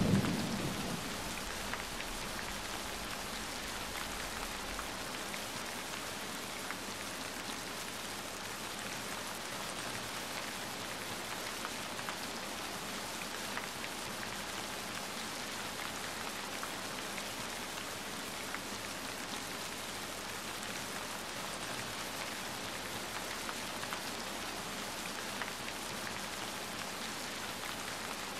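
Steady rain, with a roll of thunder dying away in the first second. Faint scattered crackles from a wood fire sound over the rain.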